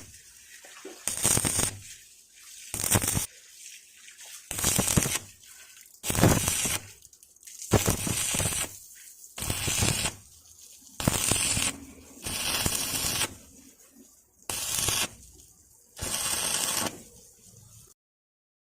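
Electric arc (stick) welding on steel tube, done in short bursts: about eleven times the arc crackles and hisses for half a second to a second, then breaks, roughly every one and a half seconds. This is the arc being struck and broken over and over, as in intermittent stitch welding of thin tube.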